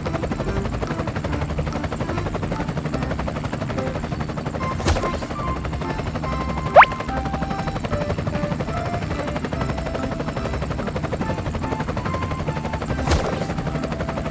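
Small engine running steadily with a fast, even chugging rhythm. A loud, short rising chirp comes about seven seconds in, and two brief clicks come near five and thirteen seconds.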